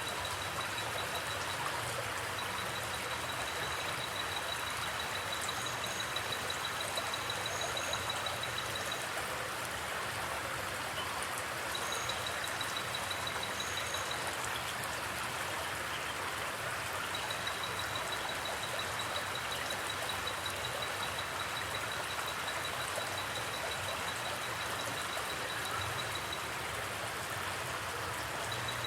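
Forest creek water flowing steadily, an even rushing. Over it a high, fast pulsing trill comes and goes in long runs, with a few brief higher chirps in the first half.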